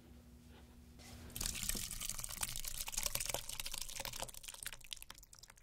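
Runny cookie batter poured from a mixing bowl, splattering and dripping onto a metal baking sheet; it starts about a second and a half in as a wet hiss full of small crackles.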